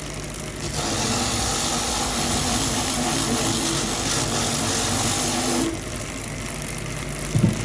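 A motor or engine runs steadily with a strong hiss for about five seconds, then drops away, followed by a couple of short knocks near the end.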